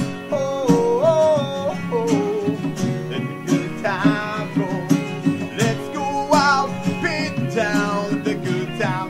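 A band playing an upbeat song live, with guitar and a melody line that bends and wavers in pitch.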